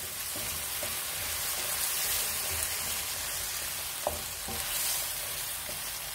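Diced potatoes sizzling as they fry in oil in a wok, turned with a wooden spatula that knocks against the pan now and then, with one sharper knock about four seconds in.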